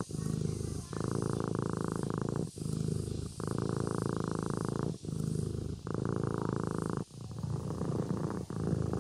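Sleeping kitten purring, the purr switching between a duller phase and a brighter phase with each breath in and out, about once every two and a half seconds.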